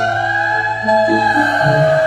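Background music: a held melody line that glides slowly in pitch over a bass line stepping from note to note.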